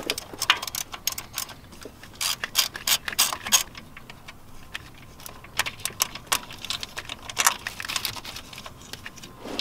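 Hand ratchet clicking in quick runs, with a pause in the middle, as a 13 mm nut is backed off the starter's main power terminal.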